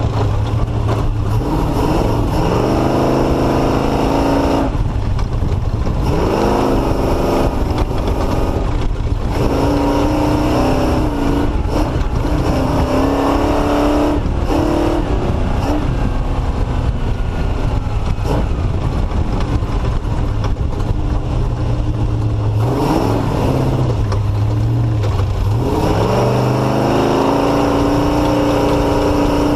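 Off-road race vehicle's engine heard onboard, repeatedly revving up and easing off every few seconds, the short bursts of throttle of picking a slow way through tight, rough terrain, over a constant rumble of the ride.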